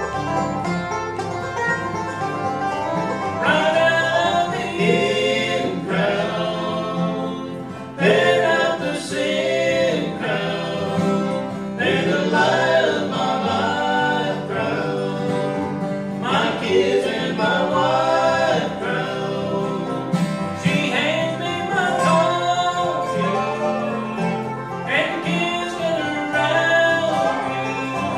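Bluegrass band playing a song: banjo, two acoustic guitars and a resonator guitar played lap-style with a steel bar.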